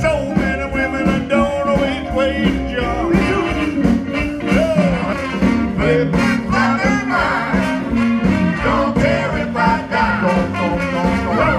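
A live blues band playing an up-tempo blues number, with horns, between sung lines.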